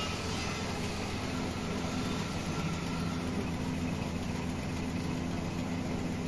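Machinery running with a steady low hum, even in level.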